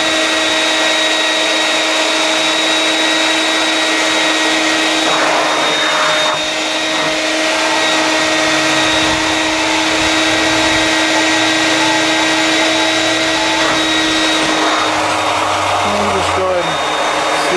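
Vax 221 wet/dry canister vacuum's two-stage motor running with a steady whine while it washes carpet, its floor tool sucking water back up. The level dips briefly about six seconds in.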